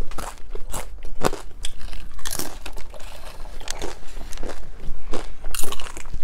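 Tortilla chips being bitten and chewed close to the microphone: a string of irregular, crackly crunches, the loudest about two and a half seconds in and again near the end.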